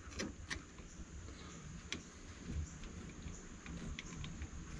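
Faint, scattered small clicks of metal parts being handled as a cotter pin is worked through the metal mounting bracket on the end of a linear actuator, over a low rumble of handling noise.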